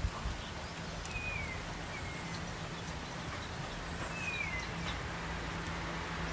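Two dogs tussling and chasing on a lawn: quick paw footfalls and scuffling on the grass over a steady outdoor background hum, with a few short falling chirps.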